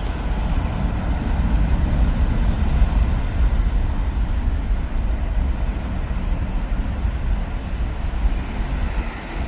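Jet airliner taking off under takeoff thrust: a steady, loud, low rumble of jet engines.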